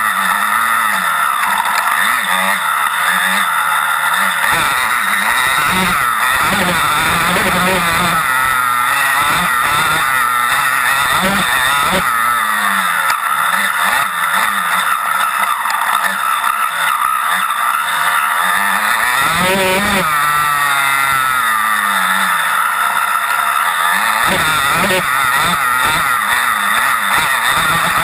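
Off-road racing motorcycle heard from on board, its engine revving up and down continuously as the rider works the throttle and gears through the trail. The pitch rises and falls over and over, with wind and rushing noise mixed in.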